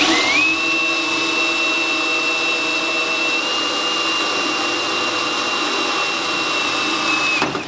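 An electric motor spins up and runs at a steady speed with a high whine, then stops near the end.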